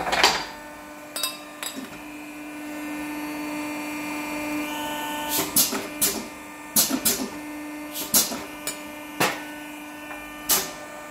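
Tube end-forming machine running with a steady hum; its low tone swells louder for a few seconds in the middle. Sharp metal clanks and knocks come as the forming tools and a stainless exhaust tube are handled and set against the die.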